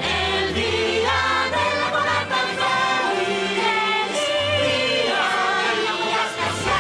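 Choir singing over backing music.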